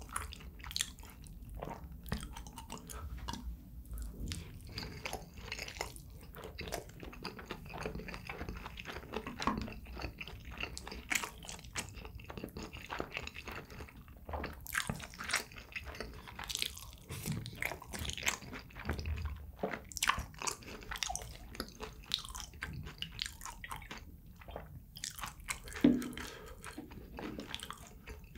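A person chewing and biting a meal of spicy chicken feet, close to the microphone: a steady run of irregular wet clicks and smacks, with one louder sharp click near the end.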